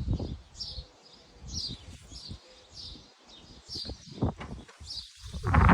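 A small bird repeating a short, high, falling chirp over and over, about every half to three-quarters of a second. Scattered low thuds sound under it, and a louder low rumbling noise comes in near the end.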